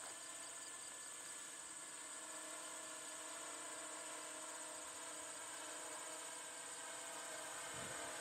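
Eye-Droid 6 hexacopter's motors and propellers humming steadily in hover-speed flight, growing slightly louder as it comes closer, with a steady high-pitched hiss over it.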